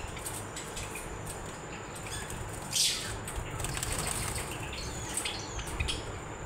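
Java sparrows fluttering their wings as they hop and fly about a small cage, with one louder burst of flapping about three seconds in.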